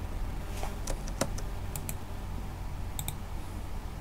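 Computer mouse clicks and keyboard key presses as a line of code is copied and pasted: about ten short sharp clicks, irregularly spaced and some in quick pairs, over a steady low hum.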